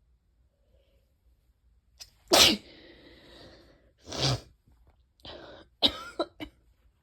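A person sneezing from allergies: one loud sneeze about two and a half seconds in, a second a couple of seconds later, then a quick run of shorter bursts near the end.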